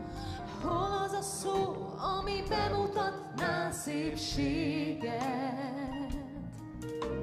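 A gospel band song: a singer holding and bending notes with vibrato over band accompaniment with drum hits.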